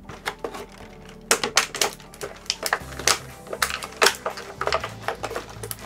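Clear plastic blister tray of action-figure packaging crackling and clicking as it is handled and a figure is worked out of it: a run of sharp, irregular clicks.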